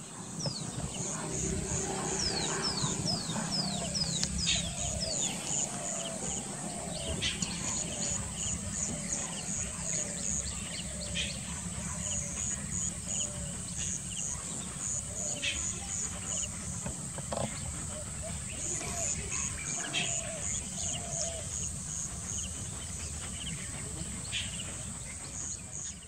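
Mixed birdsong: many small birds chirping with quick high notes, a run of falling whistles a few seconds in, and a short mid-pitched note repeated about once a second, over a steady low rumble.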